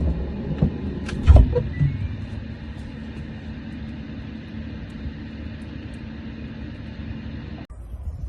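Two heavy thumps, then a steady low rumble with a hum, like a running motor, that cuts off abruptly near the end.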